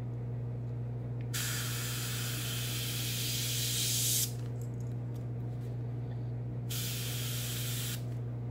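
Airbrush spraying paint in two bursts of hiss: the first starts about a second in and lasts about three seconds, the second is shorter and comes near the end. Under it runs the steady low hum of the air compressor.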